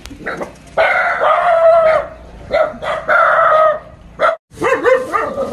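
Animal calls: two long, held cries of about a second each, then a short call and several shorter cries that rise and fall in pitch near the end.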